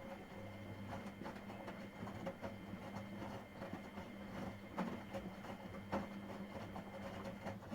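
Miele Professional WS5436 washing machine turning its drum mid-wash: a steady motor hum with irregular knocks and clicks from the tumbling load. Right at the end the motor cuts off suddenly as the drum pauses between turns.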